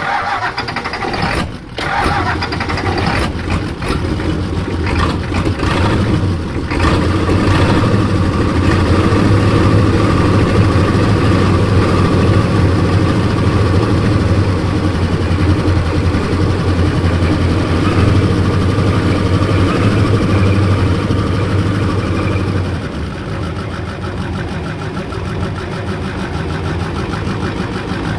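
Freshly rebuilt Ford 7.3 IDI V8 diesel firing up at the start and running loud with no exhaust system fitted, dropping back to a lower, steadier running about 23 seconds in. It runs on all cylinders, but the owner thinks it sounds a bit retarded: the injection timing may be off.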